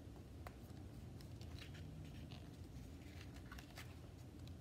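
Faint rustling and light clicks of a picture book's pages being handled and turned, over a low steady room hum.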